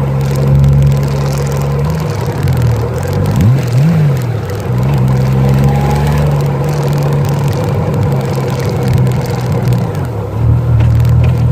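Honda Goldwing GL1500's flat-six engine running with the bike standing. It gives one quick throttle blip about three and a half seconds in, then settles into a steady idle of around 800 RPM, a good idle after the carbs were tuned and the plugs replaced.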